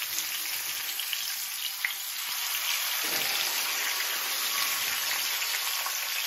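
Masala-coated whole fish sizzling in hot oil in a grill pan: a steady frying hiss with scattered crackles and pops. About three seconds in a second fish is laid into the oil, adding a brief lower-pitched spatter.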